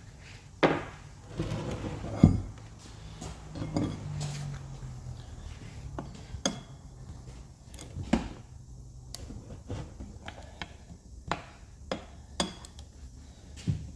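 Irregular metallic clinks and knocks of hand tools and metal parts being handled and set down, the sharpest knock about two seconds in.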